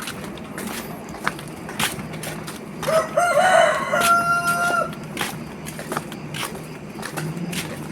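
A rooster crows once, starting about three seconds in: a few short broken notes, then one long held note, over a steady low rumble and scattered clicks.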